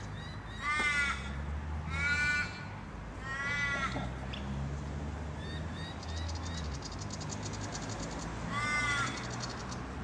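Australian raven cawing four times: three drawn-out calls in the first four seconds and one more near the end, each falling slightly in pitch at its end.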